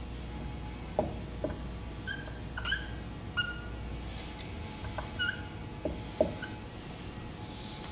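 Dry-erase marker writing on a whiteboard: several short, high squeaks as strokes are drawn, with light taps as the tip touches down.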